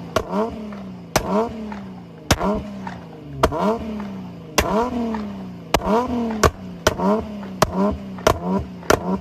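Nissan 350Z's 3.5-litre V6 revved in quick blips, each climbing sharply and dropping back, with loud cracks and bangs from the exhaust of its flame-map tune. The blips come about once a second, speeding up near the end.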